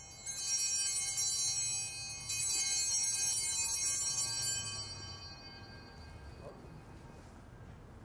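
Altar bells rung twice, at the start and about two seconds in. Each time they give a bright, high, many-toned ringing that fades out by about five seconds in. These are the elevation bells, rung as the host is raised after the words of consecration at Mass.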